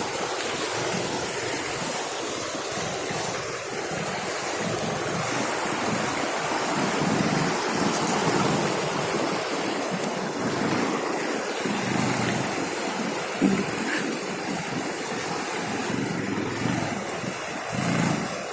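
Wind buffeting the microphone: a steady rushing noise with uneven low gusts, and a single short knock near the end.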